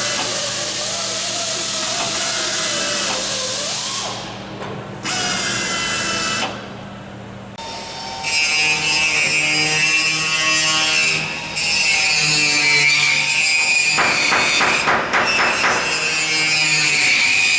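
A power tool, most like a drill, running in bursts on metal, with short pauses. In the later part it carries a steady high whine and a fast, even pulsing.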